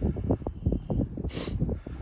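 Wind buffeting the microphone in uneven gusts, with a brief hiss about one and a half seconds in.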